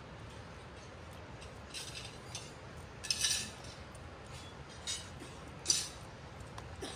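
Footsteps crunching on a gravel path, a few irregular steps over a steady low background rumble.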